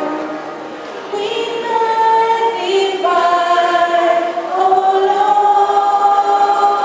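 Choir singing long held notes. The sound thins briefly near the start, and the voices come back in about a second in on new sustained chords.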